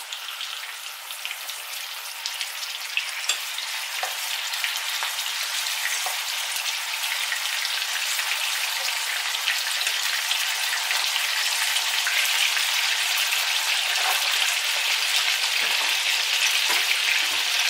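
Chicken pieces frying in hot olive oil in a frying pan: a steady sizzle that grows gradually louder as more pieces are laid in, with a few light clicks.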